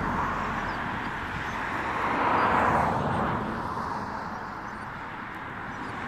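A passing vehicle on a road, with a rushing of tyres that swells about two and a half seconds in and then fades away.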